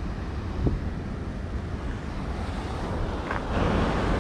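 Steady rush of rain-swollen water pouring over a spillway, with a louder whoosh building near the end.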